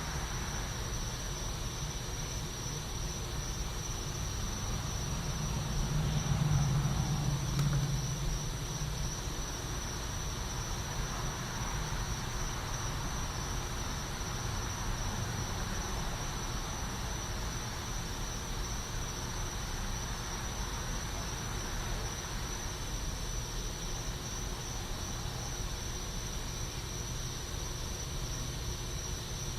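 Night insects trilling steadily in a single high pitch, over a low background rumble that swells briefly about six seconds in.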